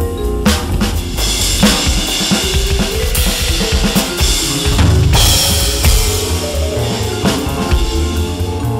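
Roland V-Drums electronic drum kit, heard through its sound module, playing a busy jazz four-beat passage with dense snare and tom hits, and cymbals ringing through the middle, over a sequenced backing with a bass line and pitched keyboard notes.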